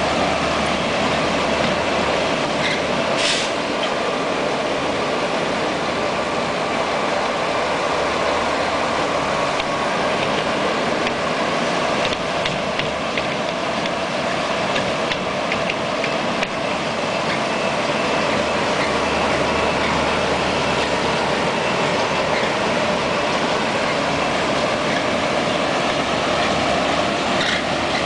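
Bitelli asphalt milling machine running at full speed, its cutting drum grinding up pavement in a steady, dense mechanical din, with a brief sharp high-pitched sound about three seconds in.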